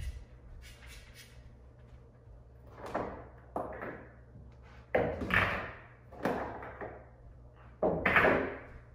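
Pool balls knocking and clattering against each other as they are taken out of a pocket by hand, in five or six separate clacks with short rattles, the loudest near the end.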